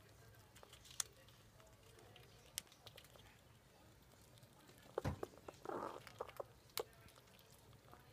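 Squirrel gnawing a hazelnut: a few sharp isolated cracks of teeth on shell, the loudest cluster about five seconds in, followed by a short rasping crunch.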